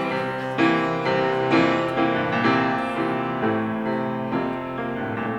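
Solo piano interlude in a classical art song: chords struck about once a second, each ringing on, getting gradually softer toward the end.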